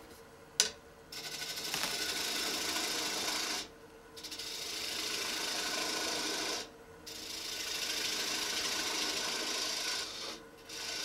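Gouge cutting wet green wood on a bowl spinning on an electric lathe, in three steady passes of two to three seconds each with short pauses between. A sharp click comes about half a second in, and the lathe hums steadily underneath.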